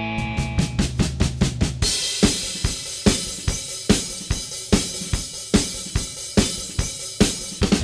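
Background music in a drum break: a quick run of drum hits over a held low note for the first two seconds, then a steady dance beat of kick, snare and hi-hat.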